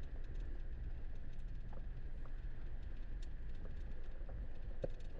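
Ford Bronco Wildtrak running at low speed, a steady low rumble with faint scattered ticks over it.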